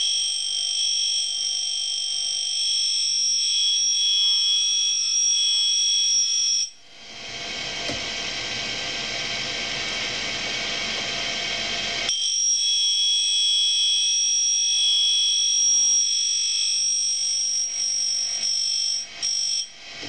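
Tool-and-cutter grinder's cup wheel grinding the primary clearance on the flutes of an end mill: a steady high-pitched whine over a running motor and air hiss. It lasts about seven seconds, gives way to the duller hiss for about five seconds between passes, then comes back for a second pass of about seven seconds and breaks off near the end.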